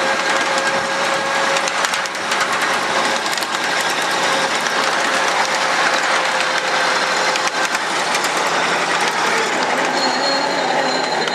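7.5-inch gauge ride-on train running steadily over the rails, its steel wheels rumbling with rapid clicks from the track, first across a steel truss bridge and then onto track through the woods. A faint steady whine runs through the first few seconds.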